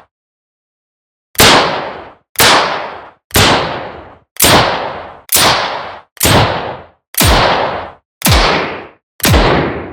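Revolver gunshots, nine single shots about a second apart after a short silence, each with a decaying tail.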